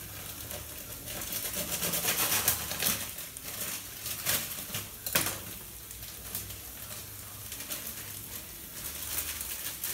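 Onions and tomatoes frying in butter in a pan: a steady sizzle with irregular crackles and sharp pops, the loudest about five seconds in.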